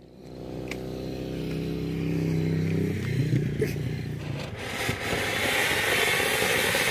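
Anar fountain firework igniting and spraying sparks with a loud, rising hiss about four and a half seconds in. Before it, a steady low engine-like drone fills the first few seconds.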